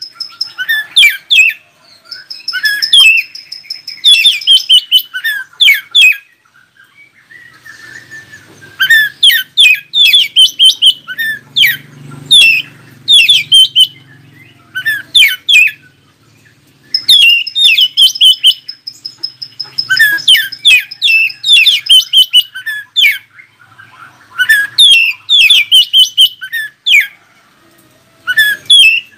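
Oriental magpie-robin singing loud phrases of rapid, varied whistled and chattering notes, separated by short pauses; some phrases carry a long, thin, high held note.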